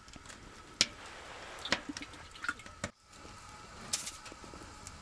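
A handful of small, sharp clicks and knocks, the loudest about a second in, over a faint steady high hum.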